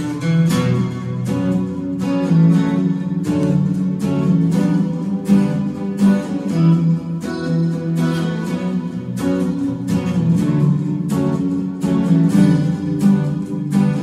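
Background music played on acoustic guitar, plucked and strummed with a steady rhythm.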